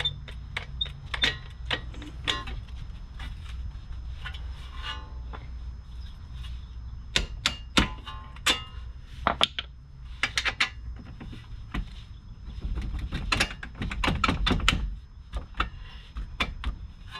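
Irregular metallic clicks and knocks of hardware and hand tools being worked on a car's front strut-to-knuckle mount, with a quick run of ticks near the end.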